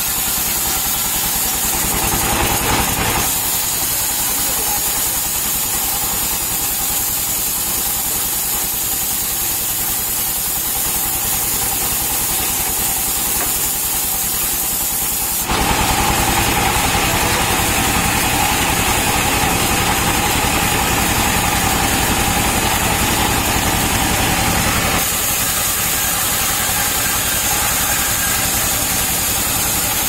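Diesel engine driving a band sawmill, running steadily with a low even beat. About halfway through the sound grows louder and hissier as the blade cuts through a palm trunk, then eases back about ten seconds later.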